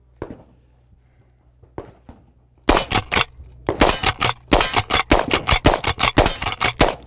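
Winchester Model 1866 lever-action rifle in .38 Special fired in a rapid string, the lever worked between shots. A few light clicks of the action come first, and the shooting starts about two and a half seconds in.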